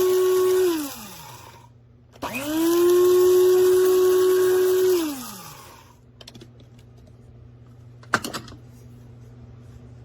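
Amazon Basics electric blade coffee grinder pulsed twice. The motor winds down just under a second in, then spins up again about two seconds in, runs steadily for about three seconds and winds down. A brief clatter follows near the end.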